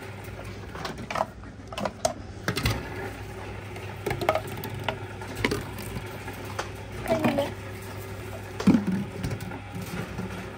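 Reverse vending machine for deposit bottles running: a steady motor hum with scattered knocks and clicks as plastic bottles are taken in and moved along inside.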